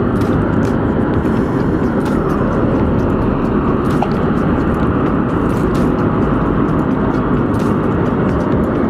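Wind buffeting the microphone: a loud, steady rumble with no pitch to it.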